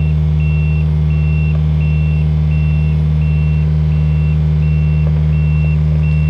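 Kubota U55-4 mini excavator's diesel engine running steadily under load while its travel alarm beeps repeatedly, about three beeps every two seconds, as the machine tracks.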